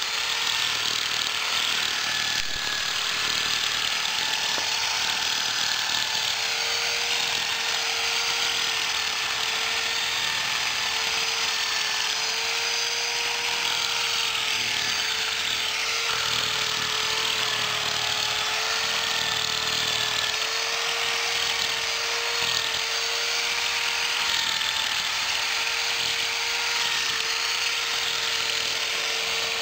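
Corded electric drill used as an improvised grass trimmer, its motor running continuously at speed with a steady whine that wavers slightly in pitch as it cuts through grass and weeds.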